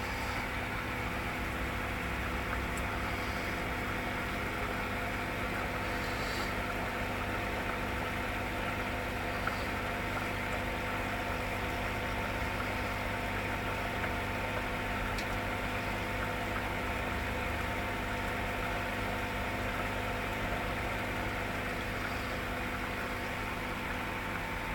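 Aquarium pump running the tank's homemade underwater sand waterfall: a steady hum with an even hiss of moving water and air over it, and a few faint ticks.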